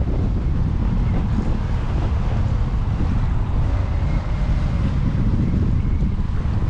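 Strong wind buffeting the phone's microphone: a loud, steady low rumble.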